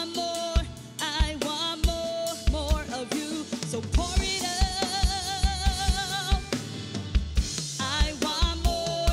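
Live church worship band music: a drum kit with kick and snare keeps a steady beat under a long melodic line held with vibrato.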